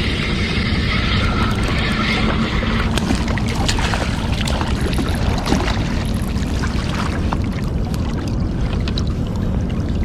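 Steady rushing of river water and wind on the microphone, strongest in the low range, with scattered small clicks. A higher hum fades out about three seconds in.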